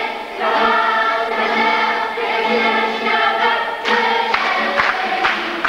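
Group of children singing in chorus to an acoustic guitar. From about four seconds in, hands start clapping along in time, roughly two claps a second.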